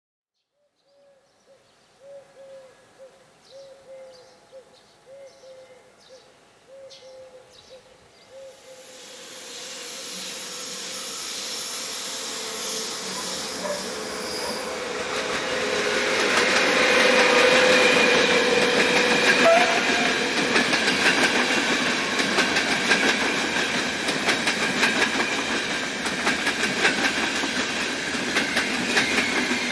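Hellenic Train class 120 electric locomotive approaching and passing, its noise building from about eight seconds in to a peak a little past the middle. Its passenger coaches then roll by with steady clickety-clack of wheels over rail joints. A faint repeating sound, about one and a half times a second, is heard before the train arrives.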